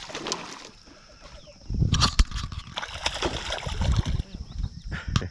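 A hooked bass splashing and thrashing at the water's surface beside the boat, in irregular bursts of splashing that grow louder about two seconds in, over a heavy low rumble.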